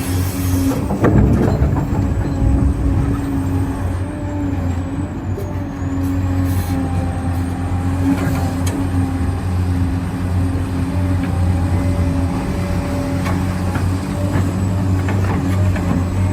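Electric drive motors and gearboxes of 1:14 scale HUINA RC construction machines running steadily, a hum with a faint high whine. A short burst of clatter about a second in.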